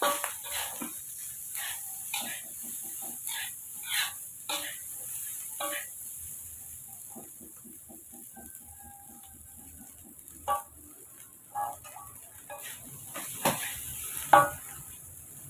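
A metal utensil clinking and scraping against cookware while food is stirred and served: a run of quick sharp clicks, with a few louder knocks near the end, over a steady high hiss.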